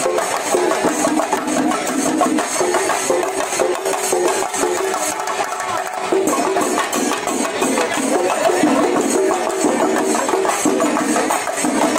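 Loud music with a dense, fast percussion beat and a repeating melody.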